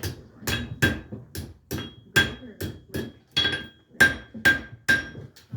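Blacksmith's hammer striking hot steel on an anvil, about three blows a second in an uneven rhythm, many of them with a ringing anvil tone. This is forging work, hammering out the points of an iron hook.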